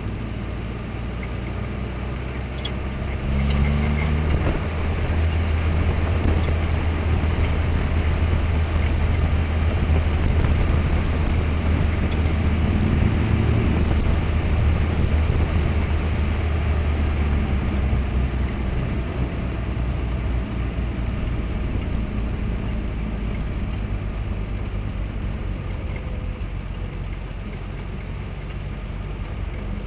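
Motorcycle and trike engines rumbling as a line of bikes rides past. The rumble swells sharply about three seconds in and eases off slowly over the second half.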